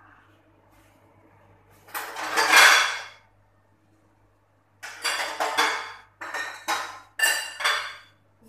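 Kitchen dishes and utensils clattering and clinking: one longer rattle about two seconds in, then a run of shorter clatters over the last few seconds.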